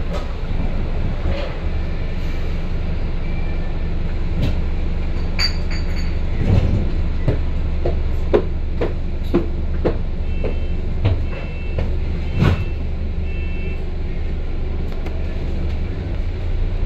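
Double-decker bus heard from inside while running: a steady low engine drone with knocks and rattles from the body, thickest in the middle, and a few short high beeps about two-thirds of the way in.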